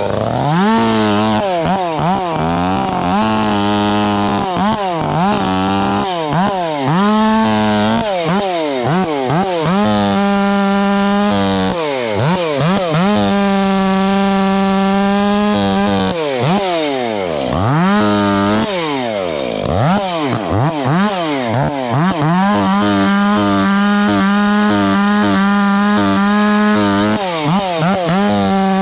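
Chainsaw revved up and dropped back again and again, about once a second, then held at full throttle for several seconds at a time while cutting wood.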